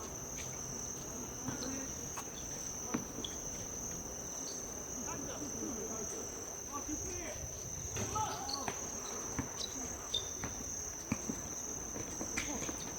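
Crickets trilling steadily in one high, continuous tone, with a few faint scattered knocks and distant voices underneath.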